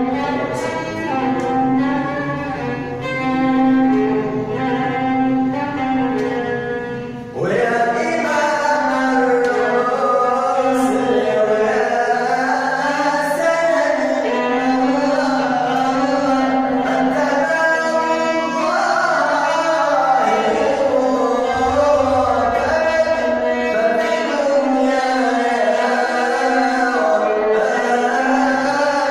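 Arabic devotional singing: a mawwal, with melismatic voice lines over a steady held low note and string-like accompaniment. The music swells fuller and louder about seven seconds in.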